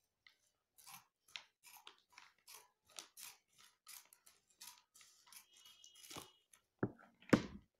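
Scissors snipping through a glossy plastic packaging wrapper: a run of short, crisp cuts, about two a second. Near the end come two louder knocks.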